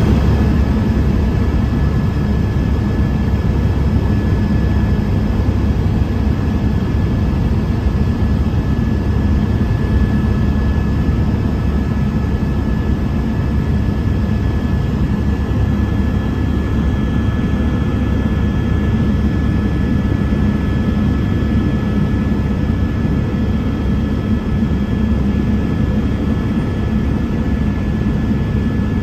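Helicopter in flight: engine and rotor running steadily, with a thin high whine over a low rumble that never changes.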